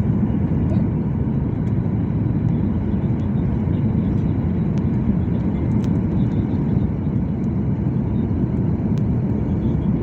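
Steady low roar of an airliner's jet engines and rushing air, heard from inside the passenger cabin on final approach with the flaps extended, just before touchdown.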